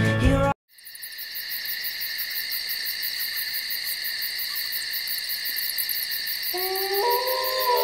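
Steady high chirring of an insect chorus, with a fine rapid pulse. Near the end a cat gives a long drawn-out meow that steps up in pitch.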